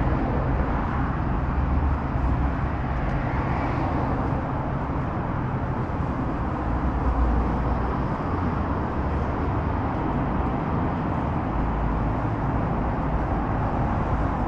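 Steady road traffic on a multi-lane city street: cars passing in a continuous low rumble that never drops out.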